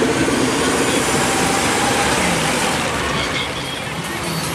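Cars driving slowly past on a wet road: a steady mix of engine rumble and tyre noise, easing off slightly near the end.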